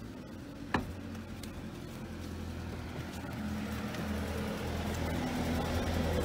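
A vehicle engine running with a low steady hum that slowly grows louder, and a single sharp knock under a second in as a man climbs in over the van's rear floor.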